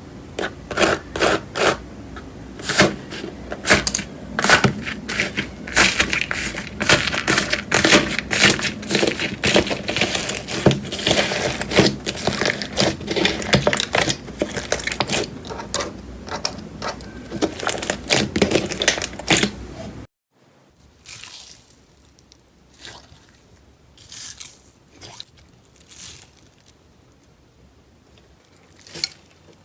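Crunchy slime being squeezed and worked by hand, giving dense, loud crackling and crunching. About two-thirds in it cuts off abruptly to a much quieter stretch with only sparse, scattered crackles.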